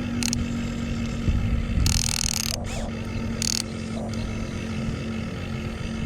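Small electric motors and gearboxes of radio-controlled construction vehicles running with a steady whine, with short bursts of noisier scraping about two seconds in and again a little later.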